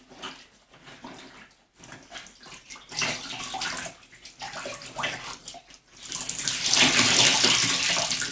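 Clothes being washed by hand in a bucket of water: uneven sloshing and splashing, with a louder, continuous run of splashing water from about six seconds in.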